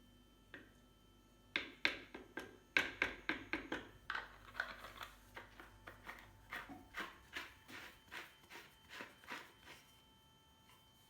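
A run of light, sharp taps or clicks, two or three a second, starting about a second and a half in and fading away near the end.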